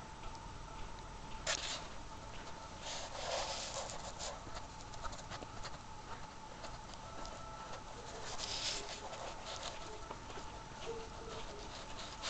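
Irregular crunching and scuffing of footsteps in fresh snow, with a few louder rustles.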